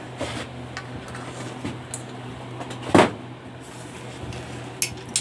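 Handling knocks and clicks: faint clicks, one sharp knock about three seconds in, and a couple more clicks near the end, over a steady low hum.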